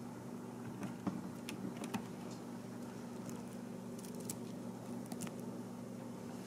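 Scattered light clicks and rustles of hands handling plastic wire harness connectors and a bundle of nylon cable ties, over a steady low hum.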